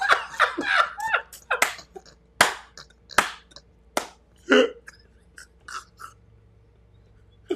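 Two men laughing hard, mostly in short breathy bursts and gasps with a few high squeaky catches. The laughter dies down about five seconds in, leaving only faint bursts.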